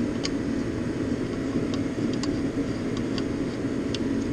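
Steady machine-like background noise, with a few faint, scattered light metal clicks as the bolt of a valve spring compressor is threaded down onto its cup on an aluminium cylinder head.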